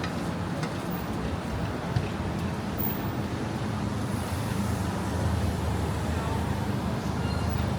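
Road traffic on a city street: a steady rumble with the low hum of a vehicle engine, growing louder about halfway through.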